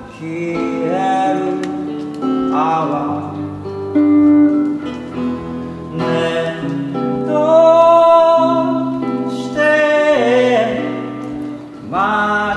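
A man singing a song over his own strummed acoustic guitar, holding one long note just past the middle.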